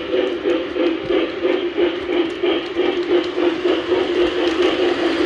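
Model freight train rolling past: a steady hum of motor and wheels on the rails, pulsing quickly, with light clicking as the cars pass over the track.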